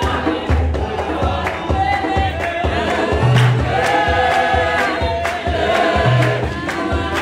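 Gospel choir singing in harmony, with sharp claps on a steady beat about twice a second and a deep bass line underneath.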